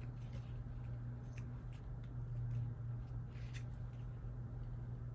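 Faint rustling and light clicks of paper and sticker sheets being handled, with a slightly longer rustle about three and a half seconds in, over a steady low hum.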